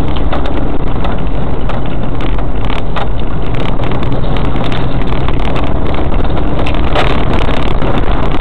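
4x4 Land Cruiser driving along a rough forest track: steady, loud engine and road noise with frequent short knocks and rattles.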